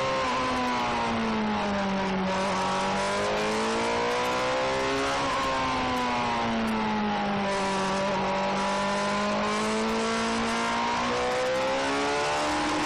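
Suzuki GSX-R sport bike engine running under load through bends, its pitch falling and rising in slow swells as the revs come off and build again, then stepping up suddenly near the end. A steady rush of wind noise runs under the engine.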